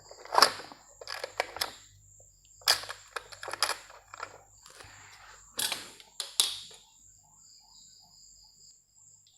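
Irregular sharp clicks and taps from handling the laptop, about a dozen spread over the first seven seconds and then stopping.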